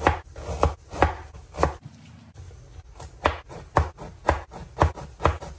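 Chef's knife slicing lemongrass into thin rounds, the blade knocking on a plastic cutting board about twice a second, with a brief pause about two seconds in.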